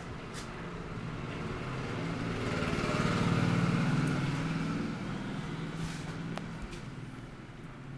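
A motor vehicle passing by, its engine hum growing louder to a peak about three to four seconds in and then fading away.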